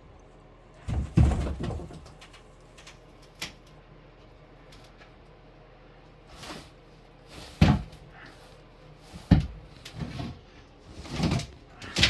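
Wooden 2x4 wall framing being forced down in demolition: a series of irregular knocks and thuds of lumber, the loudest about a second in and again near the end.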